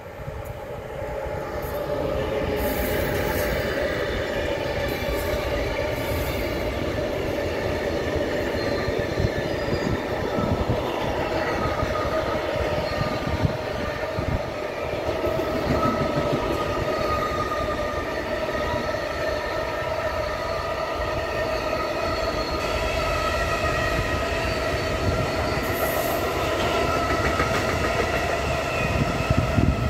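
Intermodal container train hauled by a Siemens Vectron electric locomotive (193-793) passing close by. The sound swells as the locomotive comes level, then the container wagons roll past with a steady rumble and wheel clatter, and several steady high tones ring above it.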